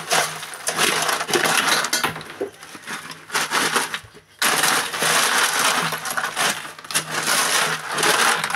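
Broken ice cubes clattering and clinking as they are tipped into the gap between a steel ice-cream canister and the wall of a plastic rice thermos. There are two long runs of clatter, with a short break about four seconds in.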